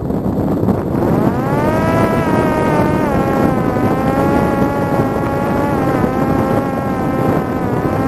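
Parrot Disco's electric motor and pusher propeller whining in flight, the pitch rising about a second in, then holding and dipping briefly near the end, over wind rushing on the onboard microphone.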